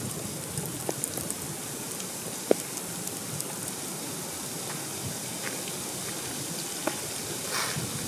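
Steady rain falling through bare woods, a constant patter with scattered sharper drop ticks, one louder tick about two and a half seconds in.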